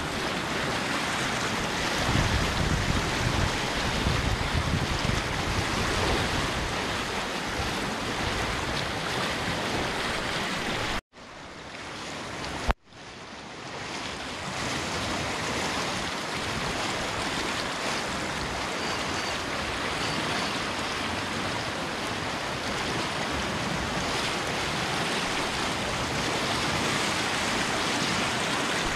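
Flooded creek rushing and churning through white-water rapids, a steady loud rush of water, with some wind buffeting the microphone in the first few seconds. About eleven seconds in the sound cuts out abruptly and comes back quieter for a couple of seconds, then returns in full after a sharp click.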